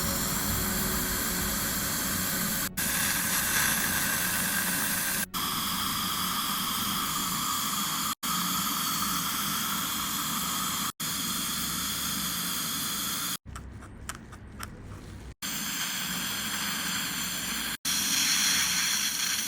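Steady hiss of dental chairside equipment at work on a tooth, with a few faint steady tones in it. The sound cuts off sharply every few seconds. A quieter stretch with small clicks comes a little past the middle.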